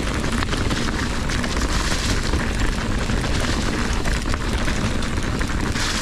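Fezzari Cascade Peak mountain bike descending a rough trail: tyre noise and a constant clatter of the bike jolting over bumps, under steady wind rumble on the camera's microphone.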